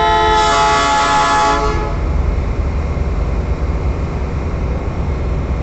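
Diesel freight locomotive's air horn sounding one steady blast of several tones, about two seconds long, as the train approaches. A steady low rumble runs underneath.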